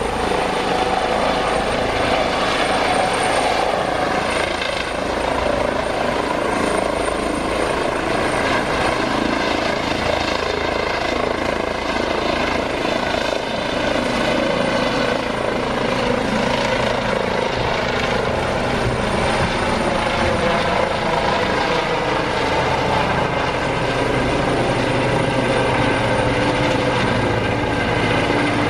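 Airbus H135 twin-turbine helicopter hovering low just after lift-off and climbing away overhead: steady rotor and turbine noise with a thin high whine.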